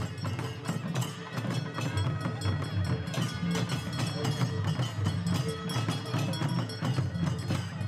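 Music with a quick, steady percussion beat over held tones.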